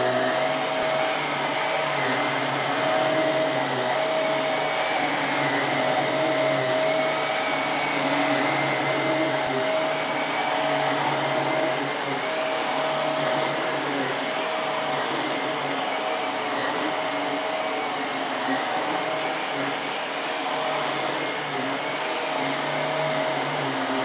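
Hoover bagless upright vacuum cleaner running steadily, a whining motor with its brush roll spinning as it is pushed back and forth over a shag carpet.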